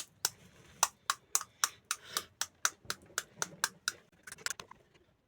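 Crisp pani puri shells crunching in the mouth as they are chewed, a quick series of sharp crunches about four a second that stops near the end.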